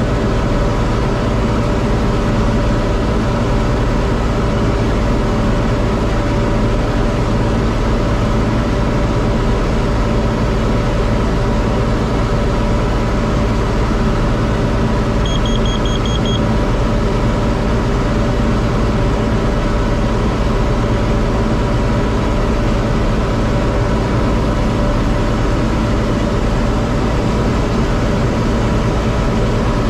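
John Deere 4250 tractor's six-cylinder diesel running at a steady speed while pulling a Kuhn VB 3155 round baler. About halfway through comes a short run of high beeps, typical of a baler monitor alarm.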